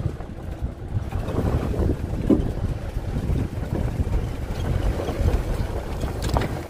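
Wind buffeting the microphone in a fluctuating low rumble, with a couple of faint knocks, while the Renault Master camper van drives over soft sand.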